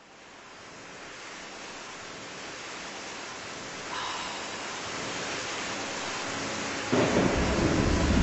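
Heavy rain fading in from silence and building to a steady downpour. About seven seconds in, a louder, deep rumble of thunder comes in.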